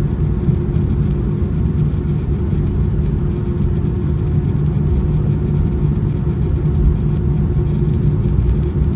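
Cabin noise inside an Airbus A319-131 taxiing on the ground: a steady low rumble from its IAE V2500 engines at taxi idle and the rolling airframe, with a constant hum running through it.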